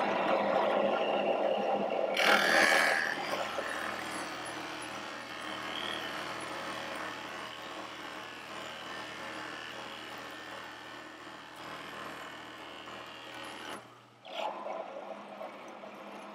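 Drill press running and boring into wood held in a jig, the cutting loudest about two seconds in over the steady hum of the motor. The hum stops about fourteen seconds in.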